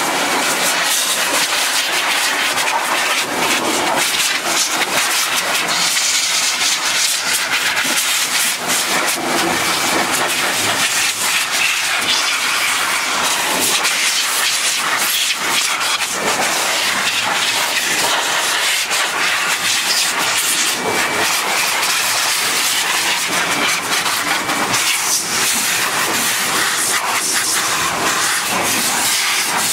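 Tornador air-powered cleaning gun spraying cleaning solution with compressed air: a loud, steady hiss with a fast rattle running through it.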